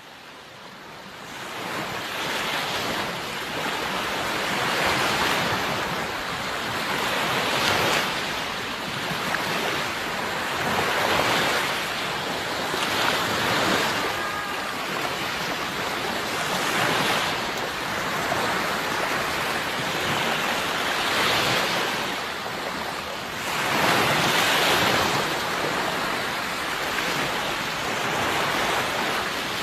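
Sea waves surging and washing in, one swell after another every two to four seconds, fading in from silence at the start.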